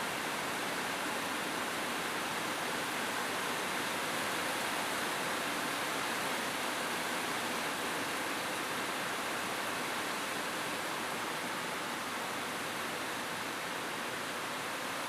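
Steady rain falling on a roof, a constant even hiss with no single drops or thunder standing out.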